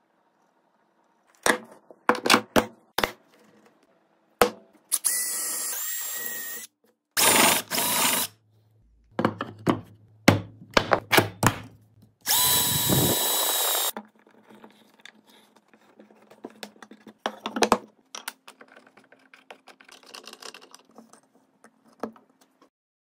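A power drill runs in several short bursts, boring holes into a clamped wood piece, with a longer, steady run about five seconds in and again about twelve seconds in. Before and after the drilling, small metal parts click and knock on the wood, and quieter clicking and scraping follows as threaded inserts and bolts are turned in with a hex key.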